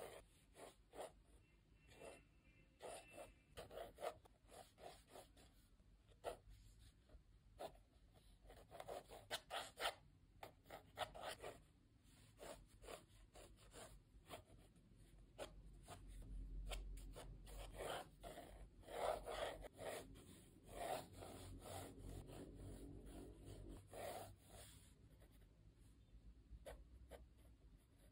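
Mechanical pencil with 2B lead scratching across sketchbook paper in many short, irregular strokes while sketching light construction lines.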